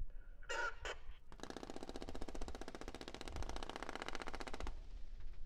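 Machine-gun fire: two short bursts in the first second, then one long, rapid, even burst of about three seconds that cuts off sharply, with a short echo trailing off after it.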